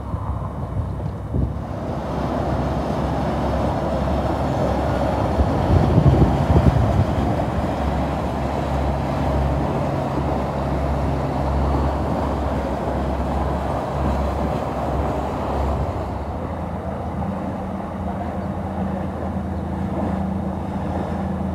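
Motor cruisers' engines running with a steady low drone as the boats pass, over a rushing of water and wind on the microphone, louder for a moment about six seconds in.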